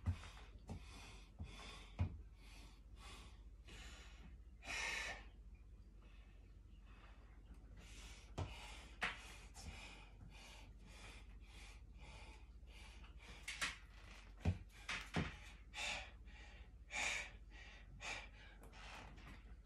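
A weightlifter taking a string of short, sharp breaths, roughly one a second with a longer one about five seconds in, as he braces under a loaded barbell before a heavy squat. A few faint knocks come between them.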